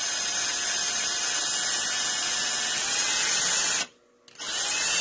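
Electric drill running steadily as it bores a small pilot hole into wood for a screw. It stops just before four seconds in, then starts again about half a second later.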